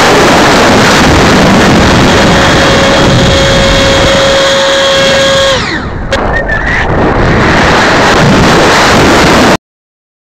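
Onboard-camera sound of a twin 90 mm electric ducted-fan model jet in flight: a loud, steady air rush over the microphone with a fan whine that drops steeply in pitch about halfway through as the sound briefly eases. The rush then returns and cuts off abruptly to silence near the end.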